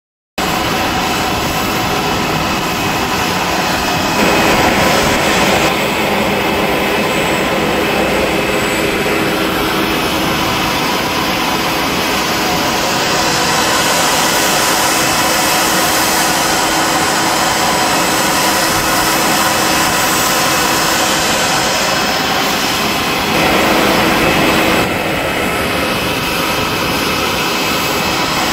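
Loud, steady whine and rush of an aircraft jet turbine running on the apron, with two brief louder swells, about four seconds in and again about twenty-three seconds in.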